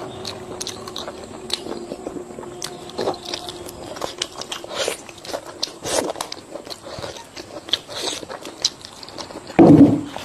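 Close-up crunchy biting and chewing of food: many short, irregular crackles, with one louder, deeper burst near the end.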